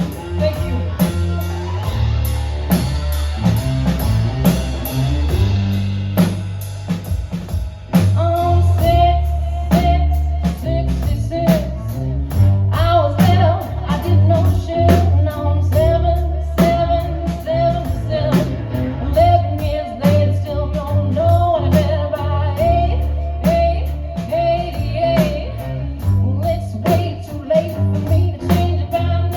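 Live band playing a song: a drum kit keeps a steady beat under guitar, and a voice sings a held melody from about a quarter of the way in.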